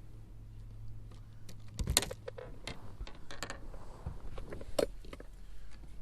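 Scattered sharp clicks and knocks from something being handled, the loudest about two seconds in, over a steady low hum.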